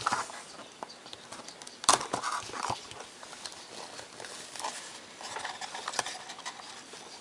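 Hands handling small cardboard trading card boxes and cards: light taps, clicks and rustling, with a sharper knock about two seconds in and another about six seconds in.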